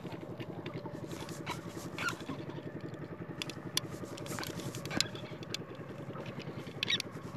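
Small boat's engine running steadily with an even, rapid throb, with scattered clicks and rubbing from the phone being handled.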